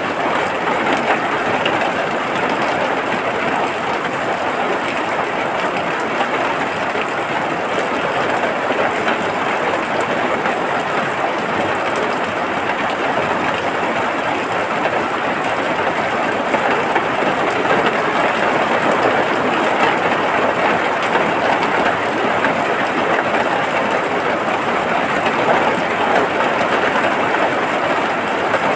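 Steady rain falling, an even hiss of many fine drops that holds at one level throughout.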